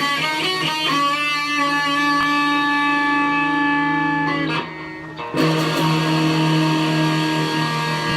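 Electric guitar played on its bridge pickup, a Seymour Duncan humbucker fitted in a Stratocaster, with the volume and tone knobs at maximum. A quick run of notes leads into a ringing chord. The strings are briefly muted about four and a half seconds in, then a second chord rings out and is held.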